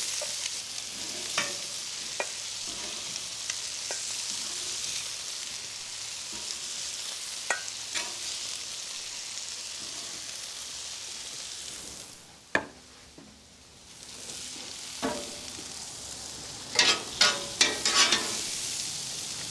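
Fajita meat and sliced peppers and onions sizzling steadily on a hot flat-top griddle, with sharp clicks and scrapes of a metal spatula and tongs as the beef is lifted off and the vegetables are tossed. The sizzle drops away for a couple of seconds about twelve seconds in, and a quick run of tong clacks comes near the end.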